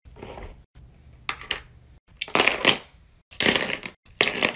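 Small plastic dimple fidget toys clattering and rattling as they are dropped and handled into a basket, in about five short bursts, loudest in the second half.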